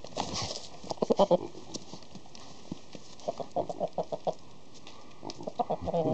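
Rooster clucking in quick runs of short calls, with a brief scuffle of movement at the start.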